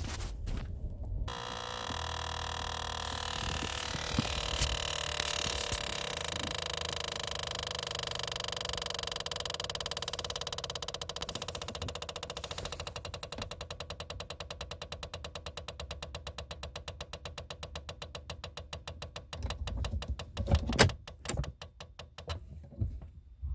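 Brake pedal of a Kia Optima Hybrid squeaking: a long drawn-out high squeal that breaks into a fast chattering squeak, slowing as it goes, then a few thumps near the end.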